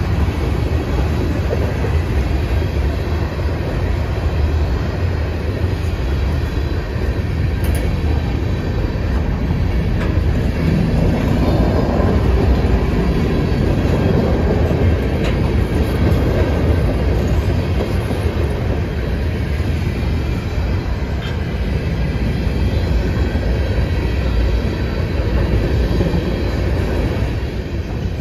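Freight train's cars, tank cars and boxcars, rolling past close by: a steady rumble of steel wheels on rail.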